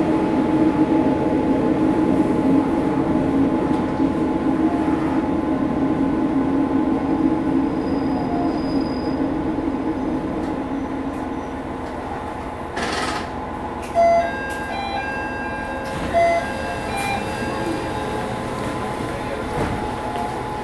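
Cabin running noise of a Matsuura Railway MR600 diesel railcar: a steady hum from the engine and running gear that fades over the stretch. About thirteen seconds in there is a short burst of hiss, followed by a few brief high-pitched tones.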